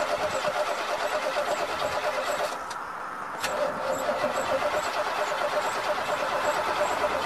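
An old car's starter motor cranks the engine in an even rhythm without it catching: a hard start. The cranking breaks off for about a second, roughly two and a half seconds in, then starts again.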